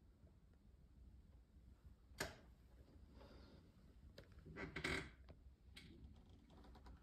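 Quiet room with a few faint, sharp clicks and knocks, the loudest a short cluster of knocks and rustling about five seconds in.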